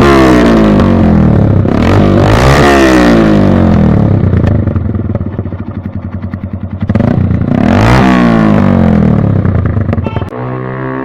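Yamaha YB125Z's 125 cc single-cylinder four-stroke engine being revved through its exhaust: several blips with the revs rising and falling, settling to a lumpy, pulsing idle in the middle, then revved again. Near the end the sound drops suddenly to a steadier, quieter tone.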